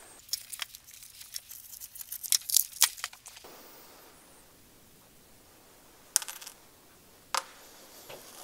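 Crackling and rustling as the shot-through fabric-and-construction-foam anti-spall cover of a steel armour plate is handled and peeled back. A quick run of sharp clicks and crackles fills the first three seconds, then two short crackles come later.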